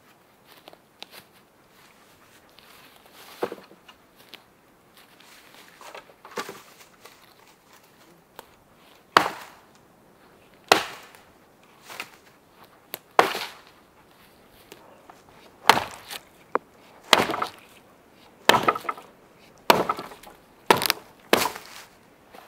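A series of sharp, irregular knocks of wood being struck, few at first and then about a dozen in quick, uneven succession through the second half.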